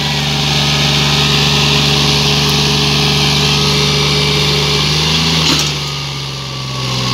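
John Deere 5039D tractor's three-cylinder diesel engine running steadily under load, pulling a disc harrow through dry soil. A short knock comes about five and a half seconds in, and the sound drops a little quieter for about a second after it.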